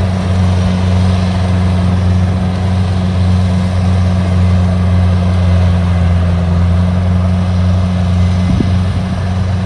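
Rice combine harvester's engine running steadily with a low, even drone while it cuts and threshes rice.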